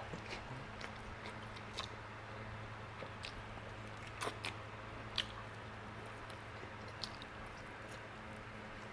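A person biting and chewing barbecued pork rib meat off the bone close to the microphone: scattered soft wet smacks and small clicks, the sharpest a little past five seconds in, over a low steady hum.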